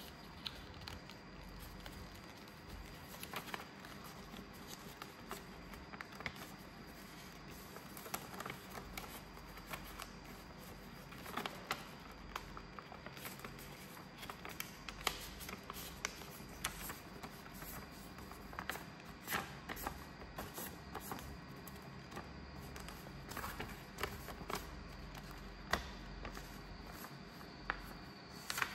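Sheet of paper being folded and creased by hand: irregular crisp rustles and crackles as it is handled and pressed flat.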